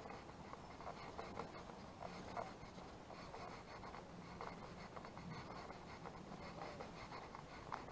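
Quiet, irregular scuffing and rustling of footsteps on a paved path, with rustle from a handheld camera as it is carried.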